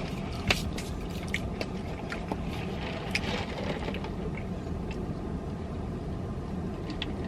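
Eating noises: soft chewing and small clicks and crackles from handling food and wrappers, scattered over a steady low hum.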